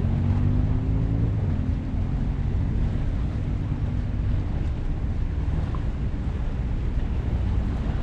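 Wind rumbling on the microphone over the drone of traffic on a seaside road. A vehicle engine's hum stands out in the first few seconds, then fades into the steady rumble.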